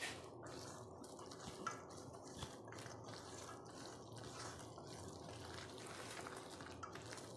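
Faint wet squelching of a hand working thick gram-flour batter and chopped onions together in a stainless steel bowl, with a few soft clicks.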